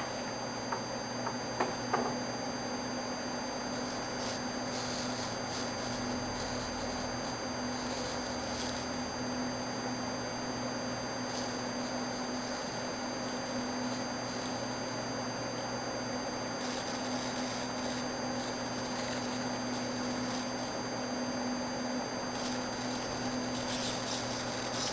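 Hobby servo motors of a quadruped walking robot whirring in short bursts every few seconds as the legs reposition, over a steady low hum. A few light clicks in the first couple of seconds.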